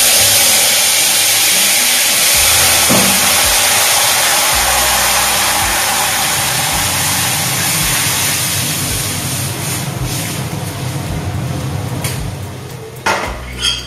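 Boiled moong dal and vegetables poured into smoking-hot mustard-oil tempering in a kadai: a loud hissing sizzle that starts suddenly and slowly dies down over about twelve seconds. A few metal clinks near the end.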